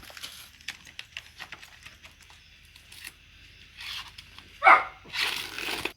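A dog barking: one loud, short bark about two-thirds of the way through, followed by a rougher, noisier sound. Under it, faint crackling of green corn husks being stripped.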